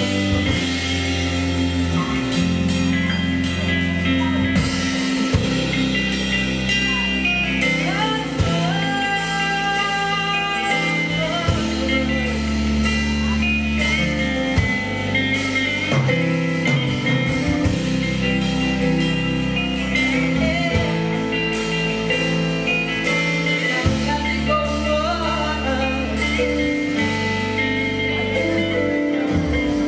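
Live afro-soul band playing, with singing: a bass line in long held notes, guitar and drum kit under the voice.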